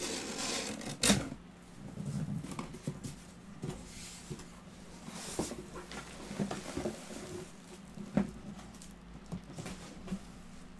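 Cardboard box and packing being handled: a sharp knock about a second in, then scattered light clicks and soft rustling of cardboard and plastic wrapping as a heavy, well-packed item is lifted out.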